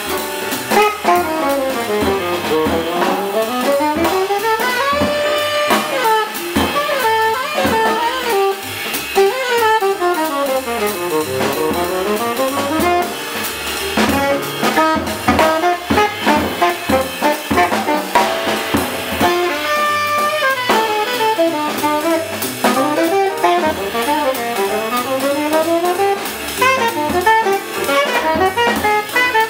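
Live jazz band playing: a saxophone solos in fast runs that climb and fall again and again, over a drum kit and the rest of the rhythm section.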